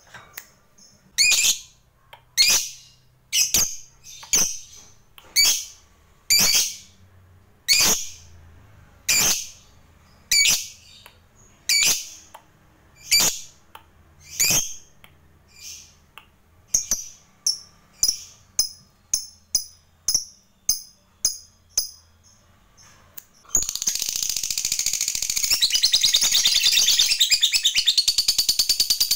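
Fischer's lovebird calling: shrill, sharp chirps about one a second that quicken to about two a second, then break into one long, continuous rapid chatter near the end — the prolonged 'ngekek' chatter that lovebird keepers prize.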